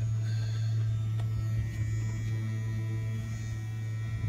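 Small battery-powered neck trimmer motor running steadily with a low hum, spinning a fishing-lure propeller fitted to it.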